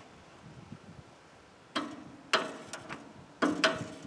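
Metal clicks and clacks from hand-adjusting the blade tension and tracking of a Woodland Mills bandsaw sawmill. Quiet at first, then two sharp clacks about a second and a half in, and a quick run of clicks near the end.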